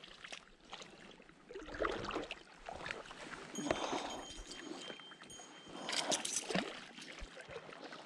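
A hooked fish splashing at the surface in shallow water as it is reeled in on a spinning rod, several separate splashes and sloshes.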